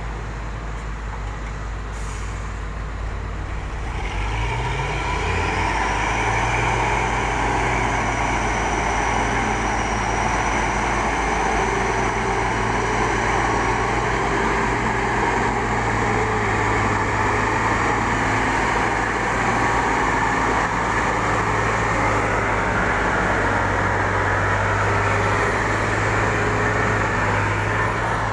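Excavator's diesel engine running, revving up about four seconds in and then held at higher revs, with a thin high whine for several seconds after the rev-up.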